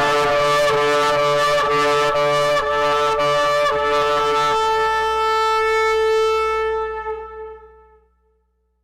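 A horn blown in long blasts: a run of short broken notes, then one long held note that fades away about eight seconds in.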